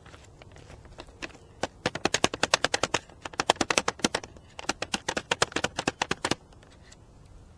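A spoon stirring instant mashed potatoes briskly, clicking rapidly against a metal container in two spells with a short break between them.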